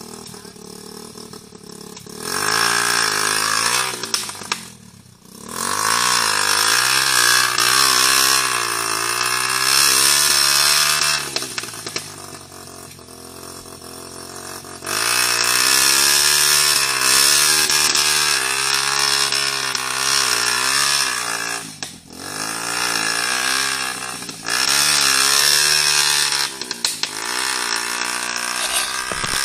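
Motorcycle engine revving hard in about five long bursts of throttle, a few seconds each, its pitch rising and falling, dropping back to a lower running note between bursts.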